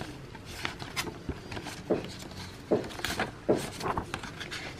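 Paper and thin card rustling and crinkling in irregular short bursts as a printed receipt is drawn out of its card folder and unfolded.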